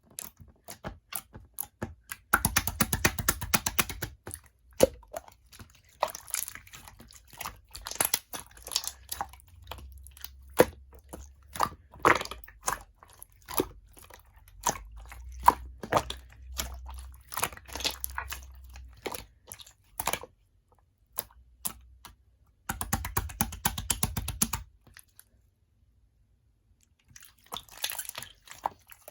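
Jelly-textured mixed slime being squished, pressed and poked by hand, giving a run of sticky clicks and pops. Twice the pops turn into a dense, rapid crackling, and there is a short pause near the end.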